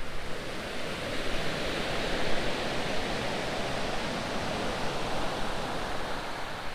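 Surf on a shingle beach: the hiss of a wave washing in, swelling after about a second and fading away near the end.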